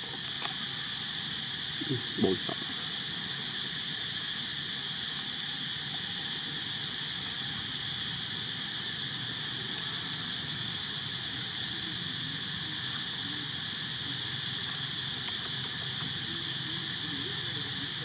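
Steady high-pitched chorus of insects such as crickets or cicadas, unbroken throughout. A brief pitched call stands out about two seconds in.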